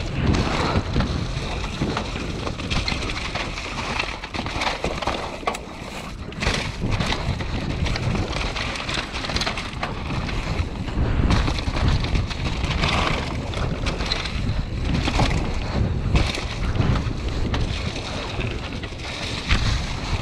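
Mountain bike descending a leaf-covered dirt trail at speed: wind rushing over the microphone with the low rumble of tyres on the ground, and short knocks and rattles from the bike over bumps throughout.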